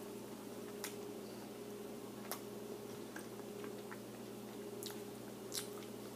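A person biting into and chewing a crispy chicken tortilla wrap, with four short, sharp crunches spread through, over a steady low hum.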